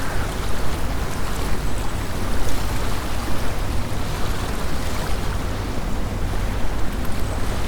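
Small lake waves lapping on the shore while autumn wind gusts, with a steady low rumble of wind on the microphone.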